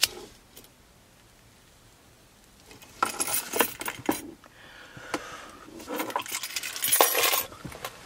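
A lighter clicks at the start, then after a few quiet seconds come loud breathy, rattly rushes of a person drawing on a blunt and blowing the smoke out, about three seconds in and again near the end.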